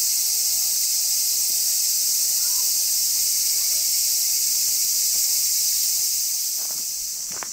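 Steady, dense, high-pitched insect chorus that thins out about six seconds in. A couple of soft knocks follow near the end.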